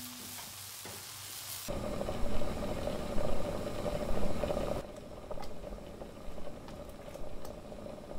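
Small tortillas sizzling in hot oil in a frying pan. About two seconds in, a pot boiling hard takes over with loud, steady bubbling. For the last few seconds, quieter kitchen noise with a few light clicks of utensils.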